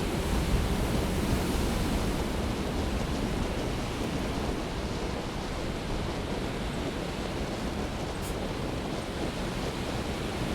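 Steady low rush of heavy winter storm surf breaking, with no single wave standing out.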